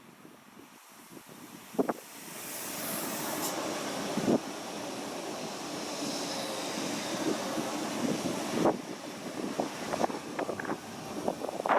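A train running past on the tracks, growing louder about two seconds in and then holding steady, with several sharp clacks along the way. Wind buffets the microphone.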